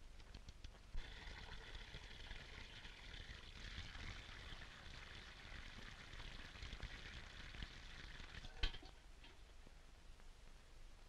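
Faint hiss and crackle of an old optical film soundtrack, with a few soft ticks about a second in and one sharp click later on; no distinct sound effect.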